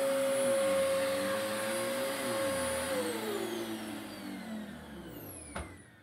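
Upright bagless vacuum cleaner running on carpet, its motor giving a steady whine. About halfway through the motor is switched off and winds down, its pitch falling away. A single click comes near the end.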